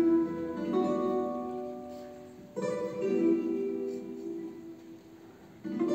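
Live music: a plucked string instrument plays chords that ring and fade away, with a fresh chord about two and a half seconds in and another near the end.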